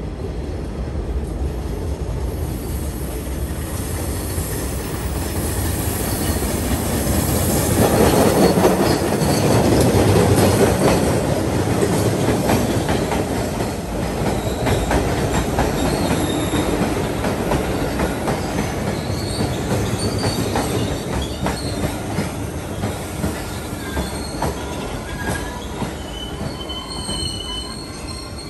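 MBTA Red Line rapid transit train running on the rails: a steady rumble of wheels and cars that swells to its loudest about eight to eleven seconds in, with wheel clatter and short, high wheel squeals in the second half.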